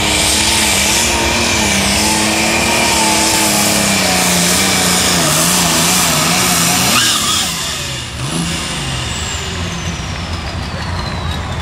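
Super stock pulling tractor's turbocharged diesel engine at full power under load, its note wavering up and down. About seven seconds in it flares briefly and is shut down, and a high turbo whine then winds down in one long falling glide.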